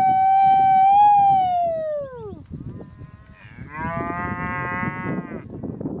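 Cattle mooing: one long, high call held steady, then falling away, and about a second later a second, hoarser moo lasting about two seconds.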